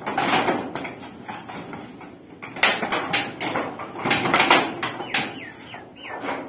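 Corrugated metal roof sheets rattling and clanking as they are pushed and worked by hand from below, in an irregular run of knocks that are loudest about two and a half seconds in and again around four and a half seconds, with a few short squeaks near the end. The sheet has been jammed tight and bent by a storm and resists being pushed back into place.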